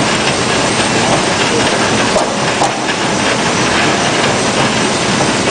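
Root-vegetable washing and peeling machine running with a load, giving a loud, steady, dense rattling noise.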